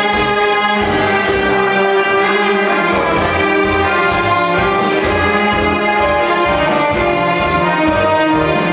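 Dance music with held melody notes over a steady beat.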